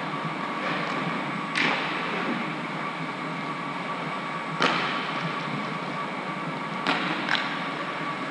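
Inline skates rolling on a hard surface, a steady rolling hiss, with four sharp clacks: one about one and a half seconds in, one around the middle, and two close together near the end.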